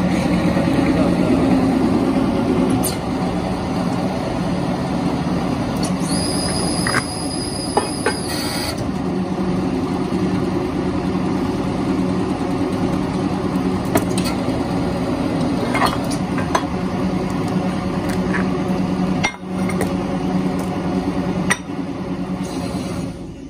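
Steady machine drone with a low hum, with scattered sharp clicks and clinks over it.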